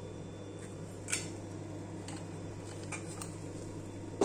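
A few light clicks and clinks of kitchen utensils being handled: one about a second in, fainter ones around two and three seconds, and a sharper one at the very end, over a steady low hum.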